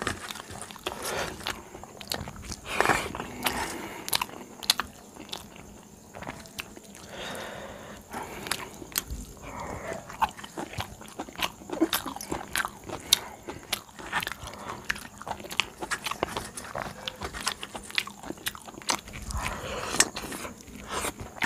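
A person eating rice and curry by hand, close to the microphone: chewing with frequent wet mouth clicks and smacks, mixed with fingers mashing rice on a steel plate.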